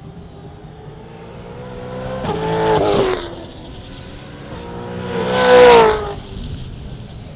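Two Gen3 Supercars V8 race cars passing by at speed, one building to a peak about three seconds in and a louder one near the end. Each engine note drops in pitch as the car goes past.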